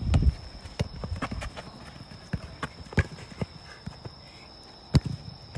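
Running footsteps and ball touches on artificial turf during a one-on-one soccer duel: a string of quick taps and scuffs, with one sharp thump of the ball about five seconds in.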